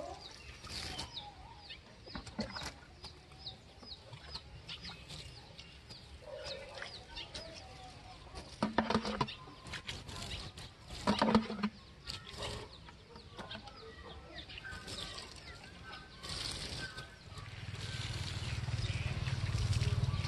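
Chickens clucking around a farmyard garden, with frequent short high chirps and two louder calls about 9 and 11 seconds in. A low steady rumble swells in near the end.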